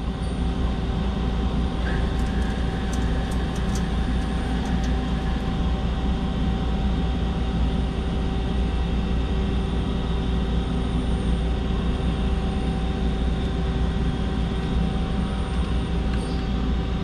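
Mazak Quick Turn Universal 200MY CNC lathe running with its spindle turning the round stock while the turning tool cuts the outside diameter: a steady machine hum with steady tones and a few faint ticks a few seconds in.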